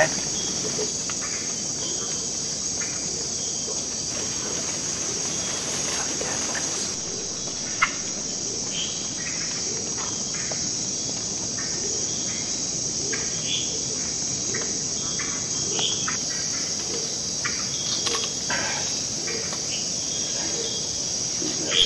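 A steady, high-pitched chorus of crickets and other insects, with short, scattered calls of hourglass tree frogs (Dendropsophus ebraccatus) chirping every second or so.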